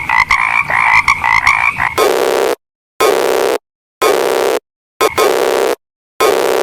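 Cartoon sound effects: a fast, pulsing sound for about two seconds, then a sound chopped into half-second bursts with silent gaps between them, about one a second.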